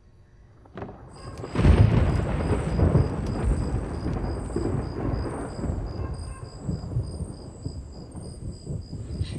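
A low rumble of thunder that comes in suddenly about a second and a half in and slowly fades, with insects chirping in steady high pulses behind it.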